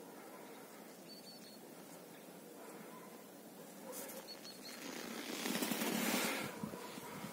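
Quiet outdoor ambience with a few faint short high chirps. About five seconds in comes a loud rustle of a jacket sleeve and hand close to the microphone, lasting about a second and a half, as a hand reaches down to stroke a cat on the snow.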